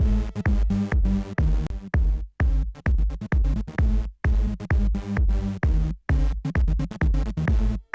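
Electronic dance music with a fast drum-machine beat and heavy bass. It cuts out for a split second about every two seconds.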